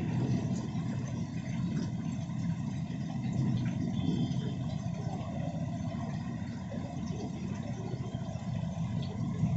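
Heavy monsoon rain pouring onto a street, a steady deep rush, with cars passing on the wet road behind it.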